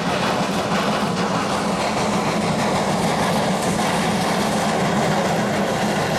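Steam locomotive working hard as it hauls a train of coal wagons, its exhaust and running gear making a dense, steady din, with steam hissing out at the cylinders.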